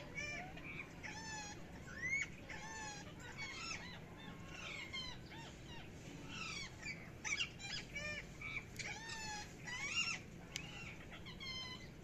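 Rose-ringed parakeets calling: a string of short, arched chirping calls, at times several in quick succession. There are a few sharp clicks in the second half.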